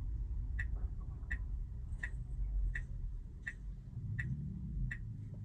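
Tesla Model Y's turn-signal indicator ticking at an even pace of about three ticks every two seconds, over a low steady road and cabin rumble inside the car.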